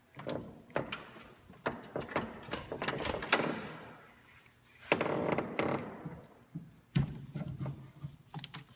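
Irregular clicks, knocks and scraping from a gloved hand working over a Chevy Uplander's V6 engine, which is being tipped forward on its mounts with a ratchet strap. The sounds come in bursts with short pauses, the sharpest knocks about three, five and seven seconds in.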